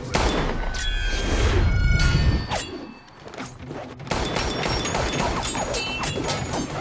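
A pistol shot goes off as a sudden deep boom that rumbles for about two seconds and fades. About four seconds in, a dense clatter of gunfire and impacts begins.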